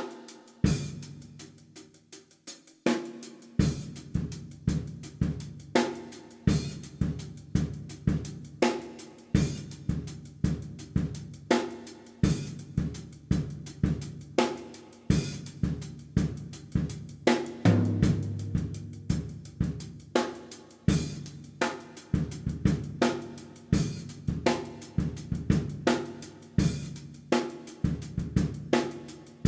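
Drum kit playing a steady beat, with cymbals, snare and bass drum.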